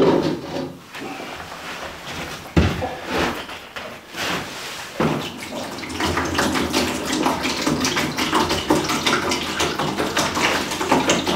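Three thumps, then water pouring steadily from a jug into a shallow bowl, starting about six seconds in.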